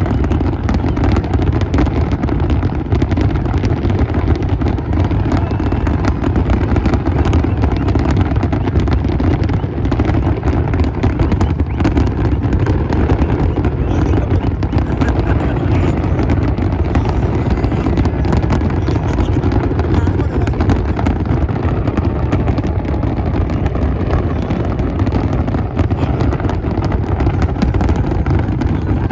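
A continuous fireworks barrage: a dense, unbroken mix of booms and crackling shells, with a heavy low rumble throughout.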